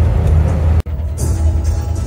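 Music playing over the low, steady drone of a bus engine heard from inside the cabin. The sound drops out for an instant about a second in, then carries on.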